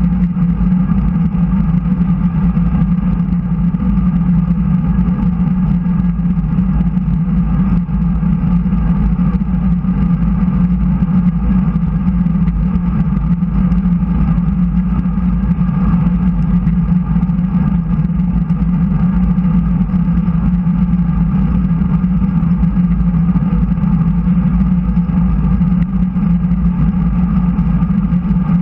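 Steady rush of wind over a bike-mounted camera's microphone, mixed with road-bike tyres rolling on smooth track asphalt at speed.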